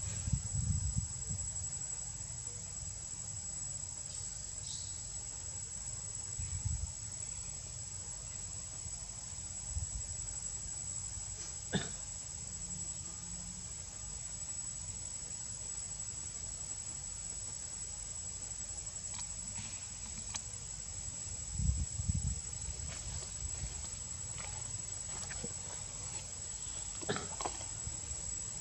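Insects chirring in a steady, unbroken high-pitched drone, with occasional low rumbles and a single sharp click about twelve seconds in.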